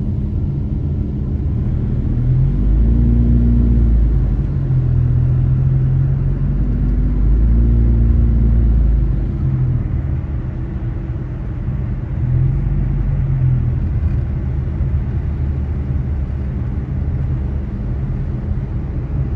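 Car engine and road noise heard from inside the cabin while driving: a low, steady drone whose pitch shifts, swelling louder about three seconds in and again around eight seconds in.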